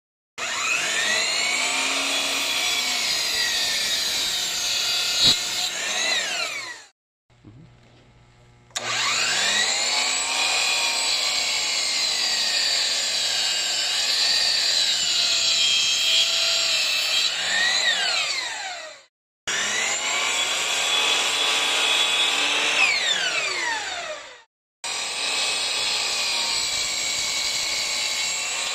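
Sliding compound miter saw crosscutting black walnut blocks: a high motor and blade whine that sags in pitch as the blade bites into the wood and recovers. Each of four cuts ends with a falling whine as the released blade winds down.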